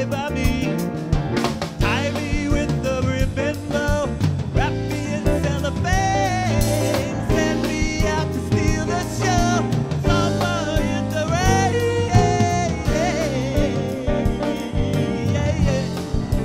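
Live band music: a man sings the lead vocal over keyboard, electric guitar, bass and drum kit.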